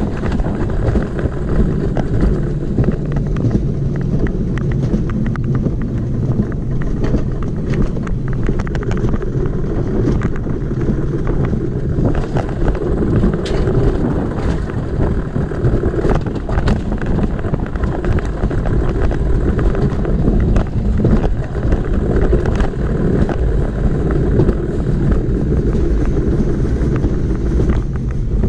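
Mountain coaster sled rolling fast down its steel tube track: a steady rumble of the wheels on the rails, with many small clicks and rattles along the way.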